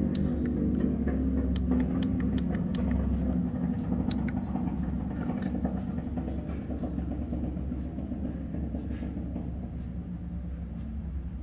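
A steady low machine hum with a few light clicks in the first few seconds. The hum eases off slightly toward the end.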